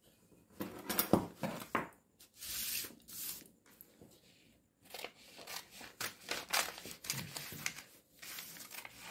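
A paper sewing pattern and taffeta being handled, rustling and scraping, then scissors snipping through the paper pattern in the second half.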